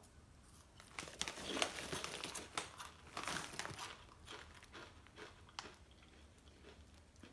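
Irregular crackling of a plastic chip bag being handled, mixed with crunching as corn chips are chewed. It starts about a second in and thins out near the end.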